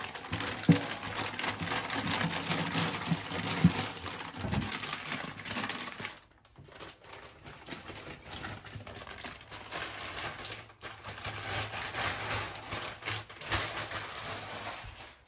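A knife scraping and cutting at a large snapper: dense, rapid rasping with ticks, a few sharper knocks in the first few seconds, and two brief breaks.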